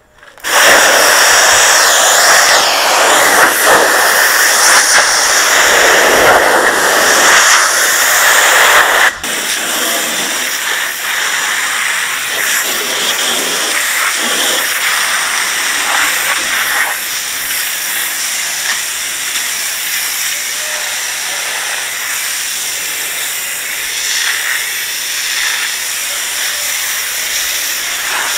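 Pressure washer spraying water onto porcelain patio slabs, a loud steady hiss. It cuts in at the start, runs loud for about nine seconds, then drops suddenly to a lower, even level.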